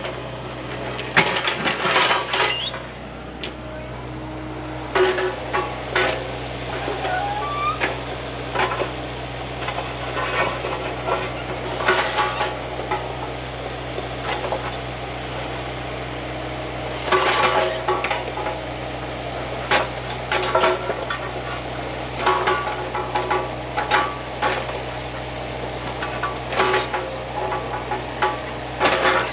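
Excavator engine running steadily while the steel bucket and tracks clank, knock and scrape against rock in repeated bursts.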